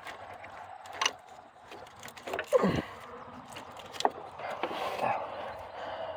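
Scattered light clicks and knocks of parts and hand tools being handled in a car's engine bay, with a short falling squeak about two and a half seconds in.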